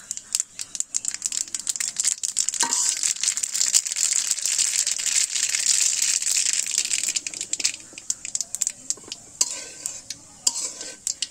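Mustard seeds and dried red chillies frying in hot oil in an aluminium karahi, the seeds popping in rapid sharp snaps over a steady sizzle. The sizzle dies down after about seven seconds, leaving scattered pops.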